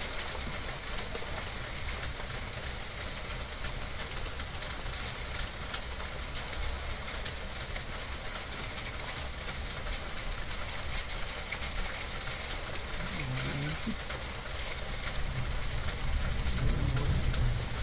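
Steady rain falling: an even hiss with scattered drop ticks over a low rumble that grows louder near the end.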